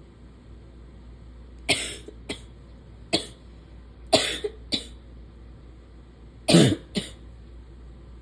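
A woman coughing: seven short, sharp coughs in small clusters, the loudest near the end.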